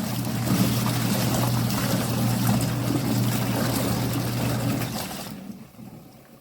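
Water running and sloshing in a portable twin-tub washing machine over a steady low hum. The sound fades away about five and a half seconds in.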